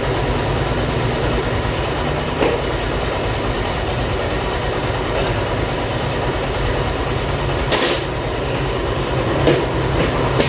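Yamaha Mio i 125 scooter's single-cylinder engine running steadily, being tested after a hard-starting fix. A few sharp knocks cut in, one a couple of seconds in and two near the end.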